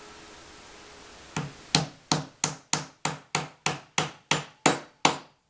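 A hammer driving a nail into wood: a quick, even run of about a dozen strikes at roughly three a second, starting about a second and a half in and stopping shortly before the end.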